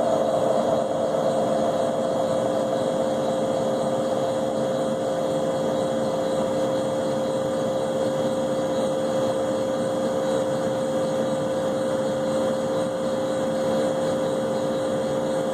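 Leybold Turbovac 150CSV turbomolecular pump running: a steady whine over a rough, even noise, the sound of its worn, bad bearings. A slightly louder, higher part of the sound eases off about a second in, after which it holds steady.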